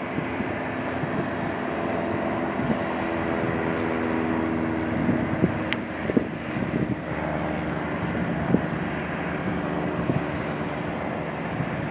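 Cessna Citation CJ3's twin Williams FJ44 turbofans heard from a distance as the jet rolls out on the runway after touchdown: a steady jet rumble carrying a few faint steady whine tones. A few soft thumps and one sharp click sit on top of it.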